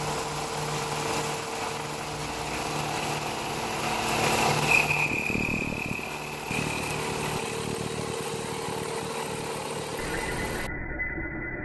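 Bridgeport Series 1 CNC milling machine cutting an aluminium plate with an end mill: steady spindle and cutting noise, with a brief high squeal about five seconds in.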